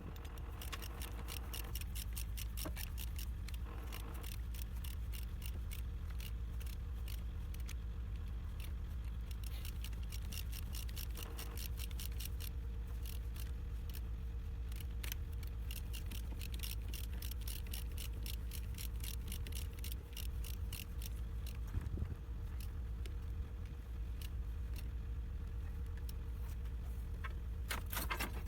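DT-75 crawler tractor's diesel engine running steadily: a constant low rumble with fast, rhythmic metallic clicking over it, briefly louder near the end.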